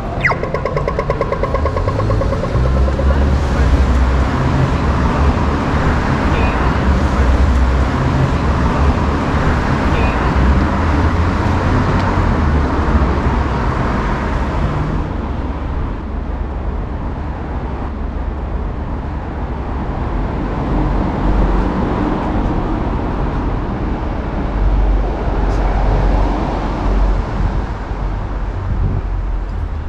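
Road traffic on a city street: a motor vehicle passes close by in the first half, its noise falling away about halfway through, leaving quieter traffic noise.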